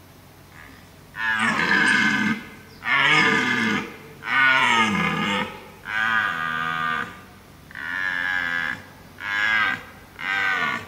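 Red deer stag roaring in the rut: a series of seven loud, deep bellows, each about a second long, the later ones shorter.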